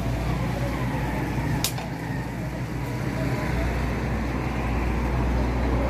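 Steady low rumble of road traffic and engines, with a single sharp click about one and a half seconds in.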